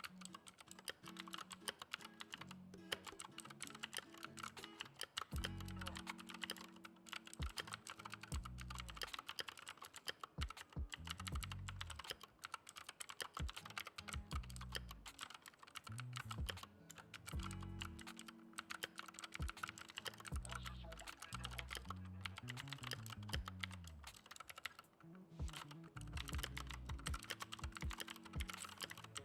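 Continuous typing on a Keychron K2 wireless mechanical keyboard with Gateron Blue clicky switches: a dense run of sharp key clicks, over background music with a slow-moving bass line.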